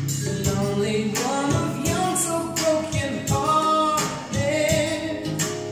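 A song with singing and instrumental accompaniment playing from a vinyl record on a turntable.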